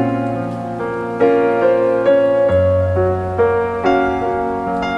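Background music: soft keyboard, likely a piano, playing a slow melody of single notes over held chords, with the bass note changing about halfway through.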